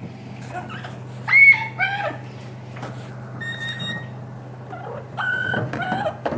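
Parrot calling: a string of short squawks and whistled notes, the loudest about a second and a half in, with a steady low hum underneath.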